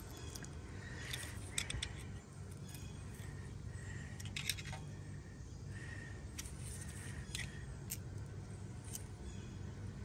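Small metallic clicks and clinks from a wrench on the front wheel-bearing adjusting nut and the hub of a 1983 Ford F-150, scattered irregularly, some with a short ring. The nut is being snugged a little at a time to take out the last of the bearing play.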